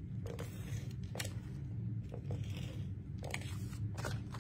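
Adhesive tape runner rolled across paper: a short crackly scrape, with about four sharp clicks as the runner and paper are set down and picked up.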